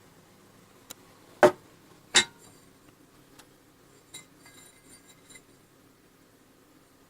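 Hard metal parts being handled and set down: a small click, then two sharp knocks about a second and a half and two seconds in, followed by several lighter clinks with a brief high metallic ring.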